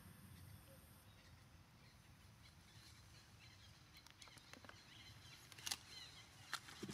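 Near silence: faint outdoor ambience with a few faint chirps, and two sharp clicks near the end.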